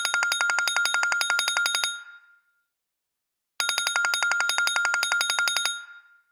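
A phone ringtone in the style of a telephone bell trill, ringing twice. Each ring is a rapid, even trill of about ten strikes a second on one steady pitch and lasts about two seconds, with a pause of about a second and a half between the rings.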